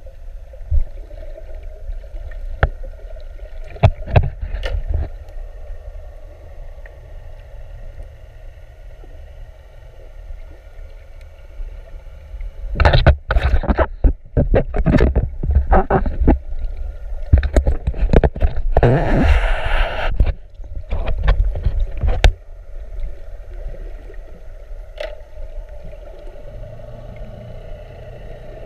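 Muffled underwater sound of a camera in a waterproof housing held under the surface, with a few sharp knocks. About halfway through, the camera breaks the surface for several seconds: loud splashing and sloshing of water against the housing. Then it drops back to the muffled underwater hum.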